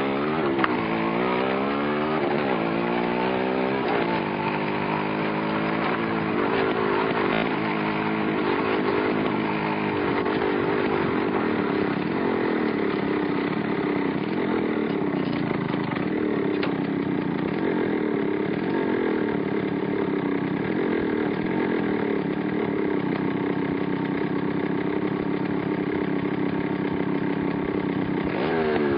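Yamaha motorcycle engine under way, its pitch climbing and dropping back a few times in the first few seconds, then running at a fairly steady speed with a slight waver for the rest.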